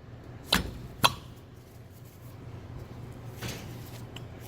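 Two sharp knocks about half a second apart, early on, as the stuck-together parts of an old EGR valve are struck to break them loose, then a softer scrape near the end.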